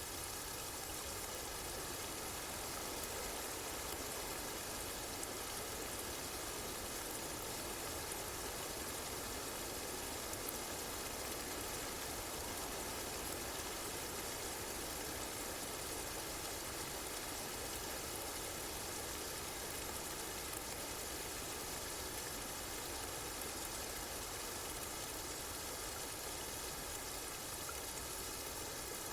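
Steady rain falling, an even rushing hiss of rainfall with no change in level.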